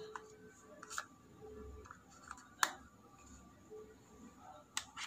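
Small plastic clicks and taps from handling a Nokia Asha 501 phone as its battery is pressed into place and the plastic back cover is fitted. There is a sharper click about two and a half seconds in, and a few quick clicks near the end as the cover goes on.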